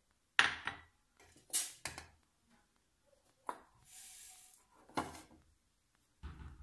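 A metal spoon clinking and knocking against an aluminium saucepan as a spoonful of black seed (nigella) is tipped into it, several separate knocks, with a brief rustle of seeds in the pan about midway.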